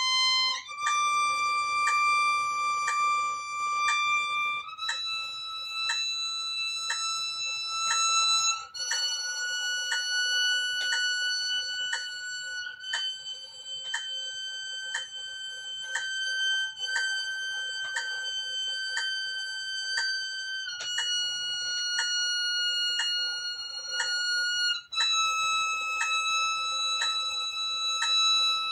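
Solo violin playing a slow G major scale in long held bows, one note about every four seconds, climbing to a high G held about twice as long and then stepping back down. A steady faint tick about twice a second runs under the notes.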